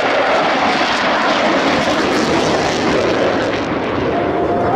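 Jet noise from a Dassault Mirage 2000 fighter's SNECMA M53 turbofan as it flies past, loud and steady, easing slightly about four seconds in.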